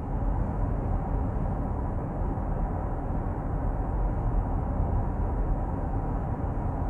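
Interior noise of a 2021 Jaguar I-Pace EV400 electric SUV cruising at 80 km/h: a steady low rumble of road and wind noise with no engine sound, measured at 61 to 64 dB. The car's Active Sound Design is set to its quiet mode.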